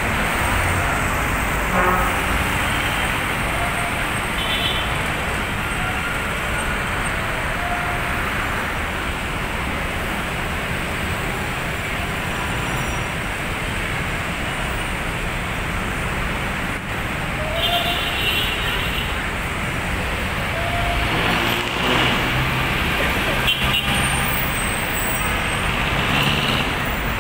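Dense road traffic at a busy intersection: a steady din of bus, truck and car engines and tyres. Short horn toots sound now and then.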